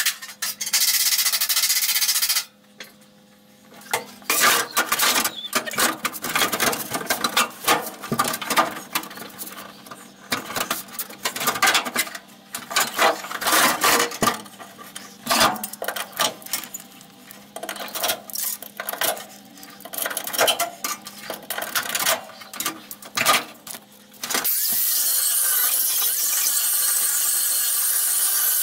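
A long run of irregular sharp clicks and knocks from sheet metal being handled, then about 24 seconds in a small high-speed rotary tool starts and runs steadily, cutting a steel floor patch panel.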